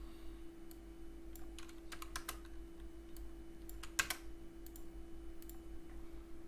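Computer keyboard keys tapped in a few short runs of clicks, with a sharper click about four seconds in, over a faint steady hum.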